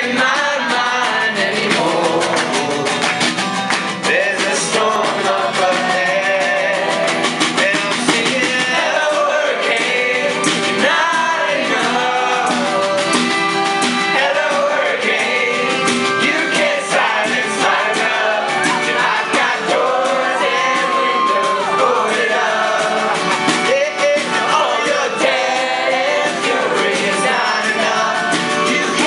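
Unplugged live rock performance: several voices singing together over a strummed acoustic guitar, a hand-played snare drum and an accordion, with the audience singing along.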